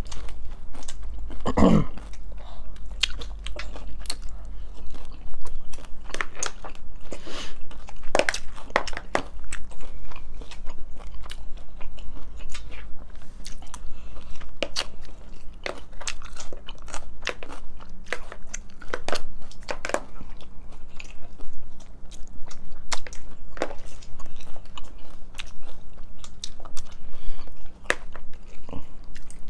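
Close-up chewing and crunching of hard-shell tacos, with many sharp crunches and mouth noises throughout, and a short pitched sound about two seconds in.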